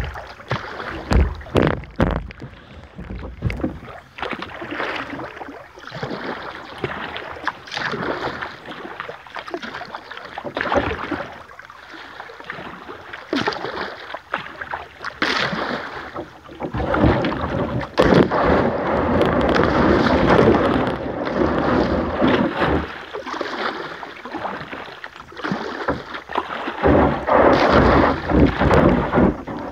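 Kayak paddle strokes splashing in the river, with a few sharp knocks of paddle on hull. A louder, steady rush of water comes through the middle and again near the end as the kayak passes over shallow riffles.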